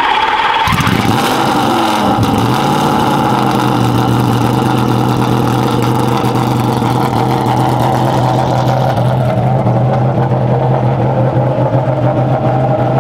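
The Ginetta LMP3's Nissan quad-cam V8 running with the car standing still: the revs dip and climb back in the first two seconds, then it holds a steady idle.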